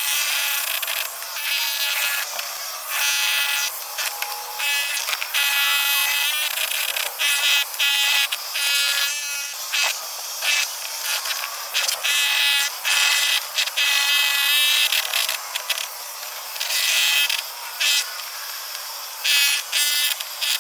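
Jackhammer chipping at concrete pillars, run in short bursts of buzzing hammering that start and stop every second or two.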